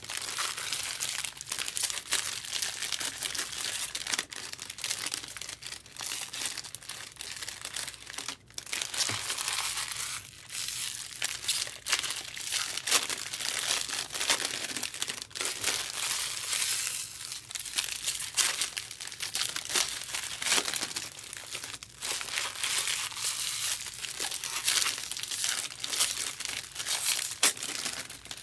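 Foil trading-card pack wrappers being torn open and crinkled by hand, in a long run of uneven crackling.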